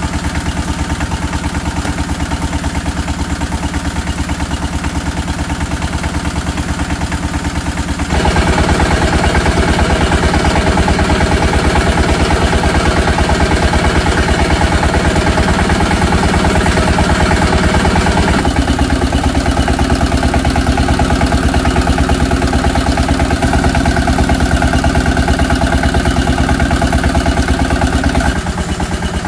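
A small stationary engine runs steadily, driving a corn puff extruder by belt as corn is fed in to make puffed corn sticks. It gets louder about a quarter of the way in and drops back near the end.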